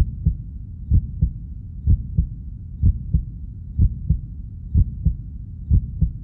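Heartbeat sound effect: a slow, steady lub-dub of paired low thumps about once a second, over a low rumble.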